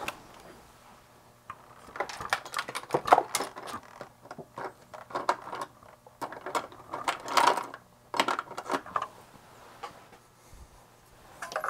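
Test wires being fetched and handled: irregular clicking, rattling and rustling in clusters for several seconds, dying away near the end.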